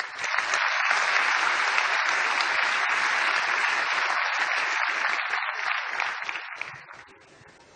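Audience applauding. It starts at once, holds steady and dies away near the end.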